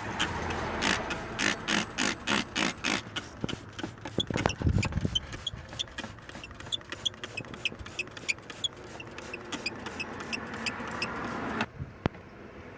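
Car engine running with its serpentine belt chirping in a steady rhythm, about four to five short chirps a second, which stop suddenly near the end. Chirping like this is the sign of the rubber belt slipping on dirty or glazed pulleys.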